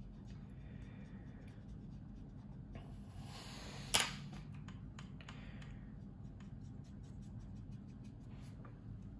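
Faint scratching and small ticks of a fine paintbrush working oil paint on a plastic scale-model tail, over a steady low hum. About four seconds in comes one sharp click as a paintbrush is set down on the cutting mat.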